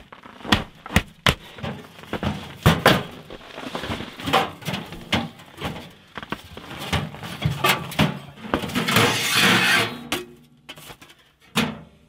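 Metal knocks and clanks of a small box-shaped tent wood stove being set up, its fold-out legs and door handled and set down on a mat. A longer scraping rustle comes about nine seconds in.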